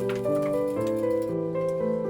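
Background music: gentle piano or keyboard chords played in sustained notes that change about every half second.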